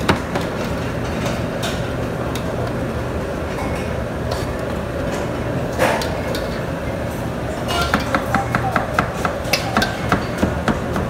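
A steady machine hum, with a sharp click at the start and another about halfway, then a quick run of light taps, about four a second, over the last three seconds.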